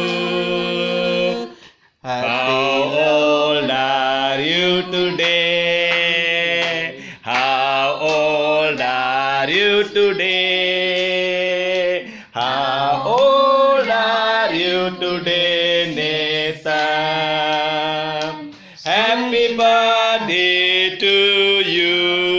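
Several voices singing a birthday song together, in sung phrases of a few seconds each with short breaks for breath between them.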